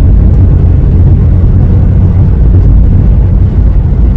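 Loud, steady low rumble of a car driving at highway speed: road and wind noise heard from inside the moving car.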